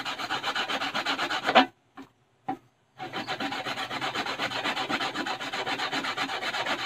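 Coconut flesh being rasped quickly up and down a handheld metal grater, about five scraping strokes a second. It stops for about a second near two seconds in, then carries on.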